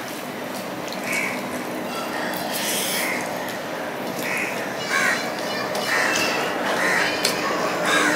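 Hand mixing rice and fish curry on a steel plate, with wet squishing, light clicks against the plate and chewing. Over it, a bird gives short calls again and again, one or two a second.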